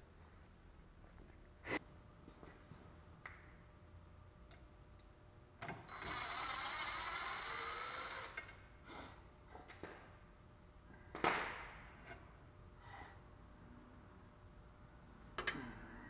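Cordless impact wrench running for about two seconds, rising in pitch as it spins off the pinch-bolt nut on a car's steering knuckle. A few sharp metal clicks of tools come before and after, the loudest about eleven seconds in.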